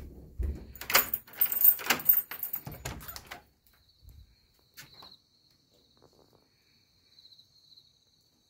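Wooden door's metal handle and latch rattled and the door pulled open, a clatter of knocks and scrapes for about three seconds. After that, insects trilling steadily at a high pitch in the night air, with one sharp click near five seconds in.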